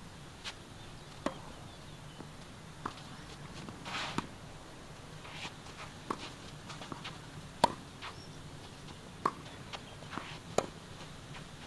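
Tennis rally: sharp pops of racket strings striking the ball and the ball bouncing on the court, one knock every one to two seconds, the loudest about two thirds of the way in and near the end.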